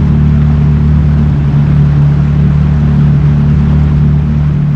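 Yamaha FX jet ski engine running at a steady speed, a loud, even drone that holds the same pitch throughout.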